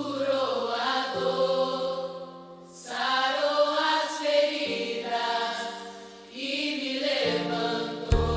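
Slow Christian worship song: long, drawn-out sung phrases, three of them, over a sustained keyboard chord that changes under each phrase. The full band comes in loudly just at the end.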